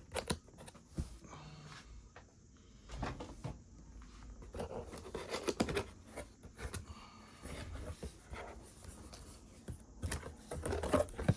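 Speaker's cardboard retail box being opened and handled: scattered taps, clicks and scraping, with bits of rustling.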